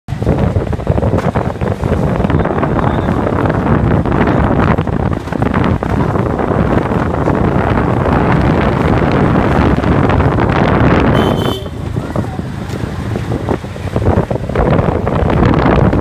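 Wind buffeting the phone's microphone as a loud, rough rumble, with a brief drop in level about three-quarters of the way through.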